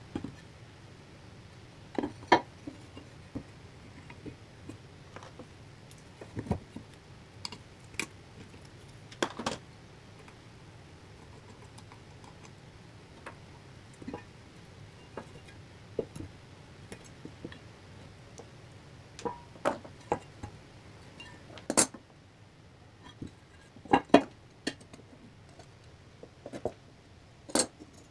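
Scattered sharp clinks and knocks of metal tools and small metal parts being handled and set down, some ringing briefly, coming in irregular clusters.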